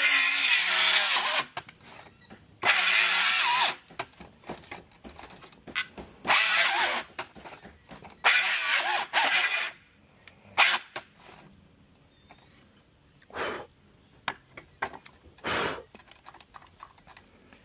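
Circular saw cutting through a 2x8 board in short bursts, the motor run for about a second at a time and stopped, with shorter blips near the end. The blade is dull and binding in the cut.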